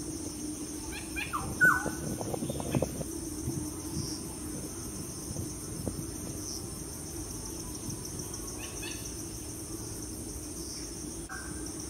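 An animal's short falling calls, the loudest about a second and a half in and a faint one near the end, over a steady high hiss and a low hum, with some low rustling just after the first calls.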